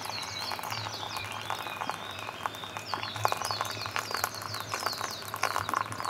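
Small birds chirping over and over, short falling notes. Under them a thin stream of hot water trickles from a kettle into a paper instant-soup cup.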